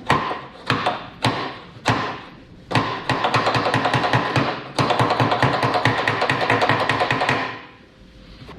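Small ball-peen hammer striking a brass drift to drive door hinge pins: a few separate sharp blows, then a fast run of rapid taps that fades out near the end.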